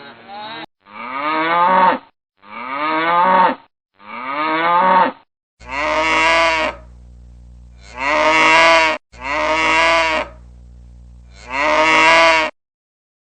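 Cow mooing: seven separate moos of about a second each, spliced from recordings. The first three sound alike, and the last four carry a steady low hum beneath them.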